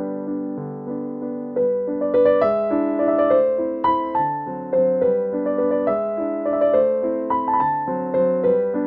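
Background music played on piano: a melody of single notes over chords, growing louder and busier about two seconds in.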